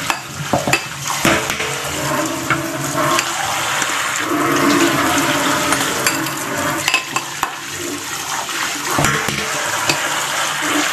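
Water pouring and splashing through a stainless steel mesh strainer into a sink as fermented black beans are rinsed, with a few brief clicks.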